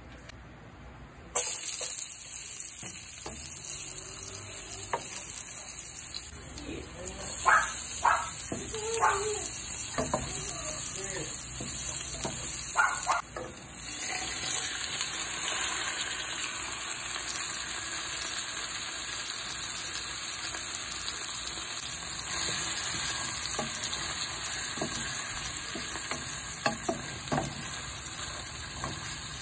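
Chopped garlic and ginger sizzling in hot oil in a nonstick pot; the sizzle starts abruptly just over a second in. After a short drop at about 13 s, raw chicken pieces go into the pan and the sizzling carries on, with a wooden spatula stirring them.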